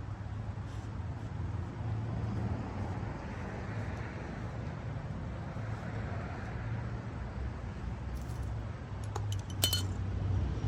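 A steady low hum, then a few sharp, light metal clinks near the end, as hand-held metal parts or tools knock together during work on a Chevy 350 engine.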